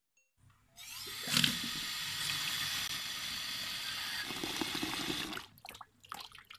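Tap water pouring in a steady stream into a stainless steel bowl of dried laksa noodles to soak them. The flow stops about five seconds in, leaving a few drips and splashes.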